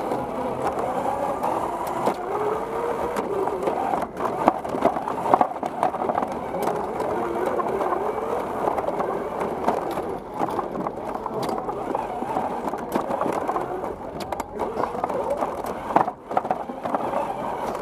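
A competition robot driving fast across an arena floor. Its wheels give a steady rolling rumble, its motors whine up and down in pitch as it speeds up, slows and turns, and there are several sharp knocks from bumps and impacts.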